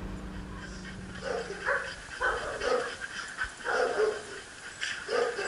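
Shelter dogs barking in a run of short barks, about one every half second to second, starting about a second in.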